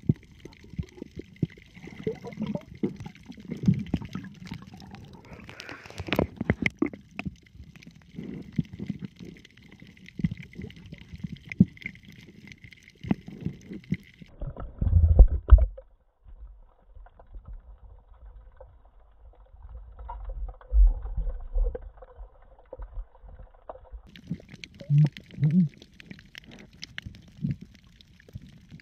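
Muffled underwater sound picked up through a camera's waterproof housing: gurgling water movement with many scattered clicks and knocks, and heavy low thumps about fifteen and twenty-one seconds in. The faint high hiss in the background cuts out abruptly partway through and comes back near the end.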